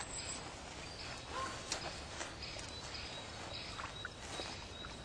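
Quiet snowy-forest ambience: a low steady hiss with a few faint, short chirps and ticks scattered through it.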